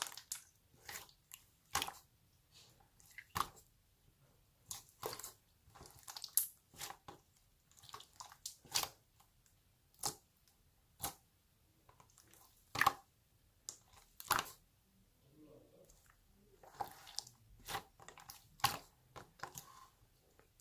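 Slime being squeezed and pressed by hand, giving irregular sharp clicks and pops, about one or two a second, with softer squishing in between.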